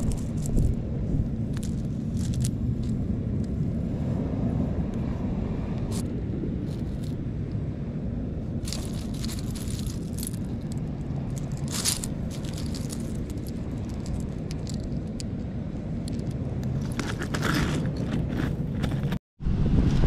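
A hand sifting through a pile of loose seashells, the shells scraping and clinking against each other in irregular scattered clicks over a steady low rumble.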